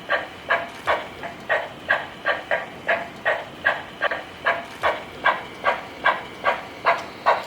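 Toy steam locomotive's running sound: short, even chugging pulses, about two and a half a second, keeping a steady beat.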